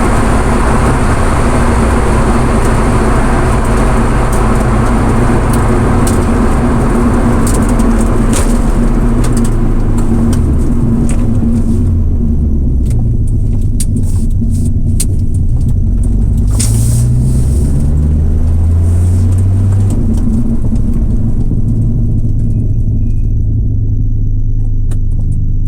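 Nissan Skyline GT-R (BNR32) running on the move, its RB26 twin-turbo straight-six note rising and falling several times as it is accelerated and eased off. Road and wind hiss is heard over the first half and then dies away. The owner is chasing an abnormal noise from the left side of the engine bay under acceleration from about 4000 rpm.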